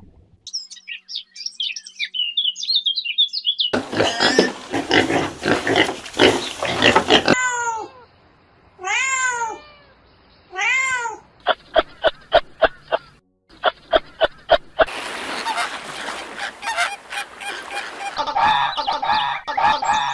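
A string of short animal sounds with abrupt changes between them: high twittering chirps, a noisy stretch, then three drawn-out cat meows that rise and fall, followed by a quick run of clicks and more noise.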